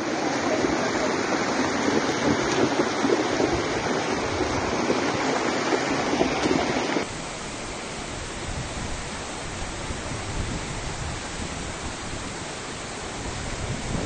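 Floodwater rushing, a steady noise of fast, muddy water from a mountain river that has burst its banks after heavy rain. About seven seconds in it cuts abruptly to a quieter, hissier rush.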